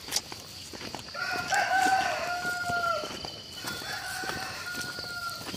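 A rooster crowing twice: a long, loud crow about a second in, then a second, fainter one. A steady high insect drone and footsteps on the path sound underneath.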